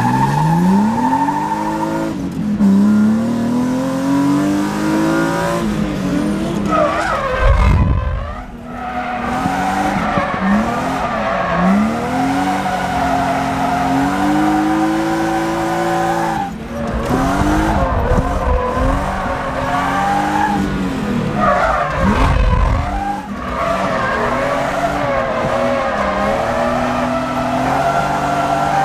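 BMW E36 M3's S52 inline-six revving hard, its pitch climbing and falling over and over with a few sharp drops, while the tires squeal and skid through a drift, heard from inside the caged cabin.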